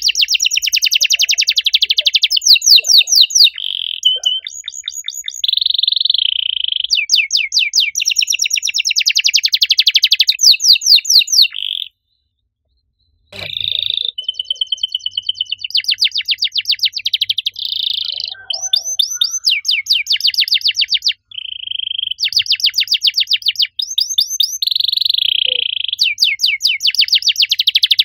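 Domestic canary singing: fast rolling trills alternating with held whistled notes, high-pitched and nearly continuous. There is a break of about a second and a half near the middle, which ends in a sharp click.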